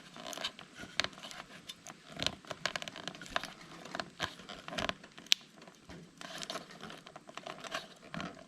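Irregular small clicks, taps and scrapes of hands working a turn-signal indicator bulb and its holder loose from a Vespa P200E's headset housing.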